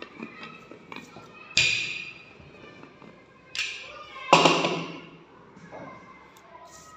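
Three sharp wooden knocks and thuds, the last and loudest about four seconds in, as a wooden rolling pin and a clay slab on a cloth are worked on a table.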